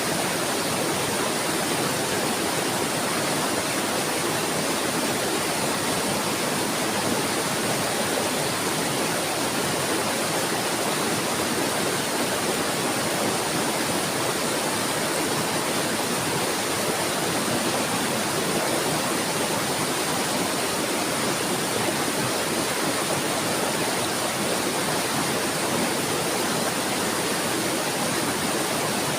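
Flowing water babbling steadily, a continuous even rush with no birdsong over it.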